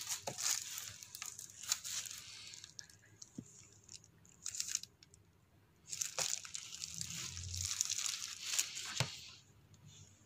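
Clear plastic wrapping film crinkling and rustling as hands handle and pull at it, in several bursts, with a few light knocks.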